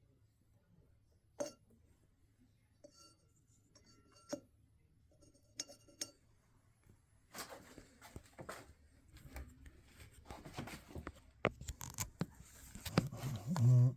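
Small objects being handled: a few separate sharp clicks and clinks, then from about halfway a busier stretch of clicking and rustling that grows louder toward the end.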